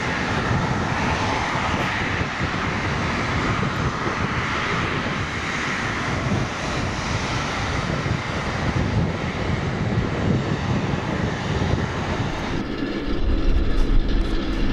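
Bombardier CRJ-900's two rear-mounted GE CF34 turbofans running at idle as the jet taxis in, a steady jet whine and rush. About four-fifths of the way through, the sound changes abruptly to a lower, steadier hum.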